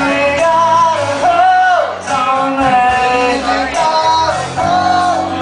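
Live band music: a man singing held notes over piano and drums.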